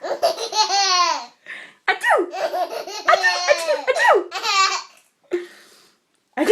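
A baby laughing hard at fake sneezes: high-pitched belly laughs in two long bouts, the first about a second long and the second about three seconds.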